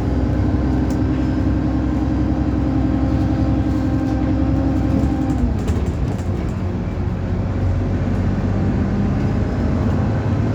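Alexander Dennis Enviro 300 single-deck bus's diesel engine running steadily under way; a little over halfway through its note drops away, and it picks up again near the end.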